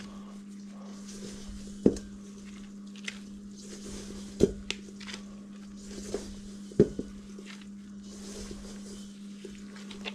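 Gloved hands squeezing and working crumbly pie crust dough of flour and shortening in a stainless steel mixing bowl: soft squishing and rustling, with sharp knocks of hands against the bowl, three of them louder, about two and a half seconds apart. A steady low hum runs underneath.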